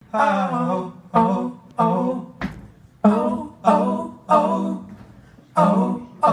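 Live band's song intro: a steady pulse of short pitched notes, each starting sharply and fading, about one every two-thirds of a second, with a single click about two and a half seconds in.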